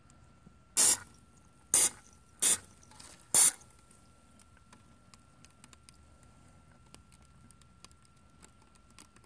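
Four short hisses of an aerosol can of nonstick cooking spray being sprayed onto a glue trap to loosen the glue, the bursts about a second apart, followed by faint scattered ticks.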